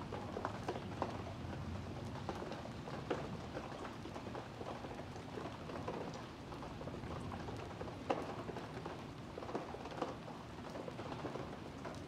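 Rain falling on wet brick pavers: a steady hiss with irregular close drops ticking, one louder tick about eight seconds in.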